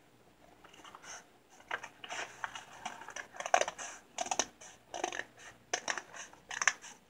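Scissors cutting through paper in a run of short, irregular snips, starting about a second and a half in.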